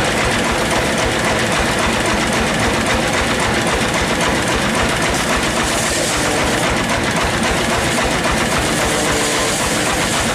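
Sawmill machinery running steadily, a loud, dense mechanical noise with a rapid, even clatter underneath.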